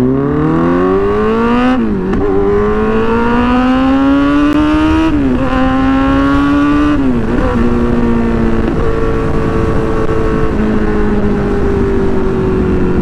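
Kawasaki Z900 inline-four with an aftermarket exhaust accelerating hard through the gears: the engine note climbs three times, dropping sharply at each upshift, then settles into a steady, slowly falling cruise. Wind rushes over the microphone.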